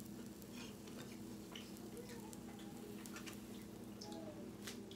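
Eating at a table: scattered light clicks and taps of cutlery and chewing, a few to the second, over a steady low hum.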